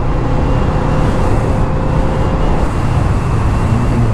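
Kawasaki Z650 parallel-twin motorcycle engine running steadily at road speed, mixed with wind rush on the helmet-mounted camera.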